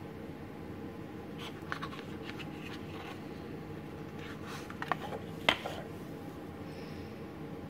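Light clicks and taps of metal pens being handled in a cardboard gift box as one is lifted out, with two sharper clicks about five seconds in, the second the loudest. A steady low hum sits underneath.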